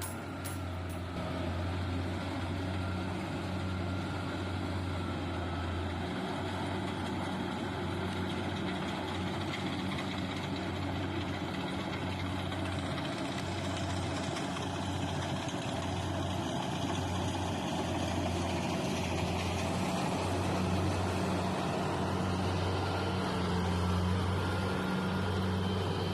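Rice combine harvester engine running steadily with a deep, even hum that swells and eases slightly.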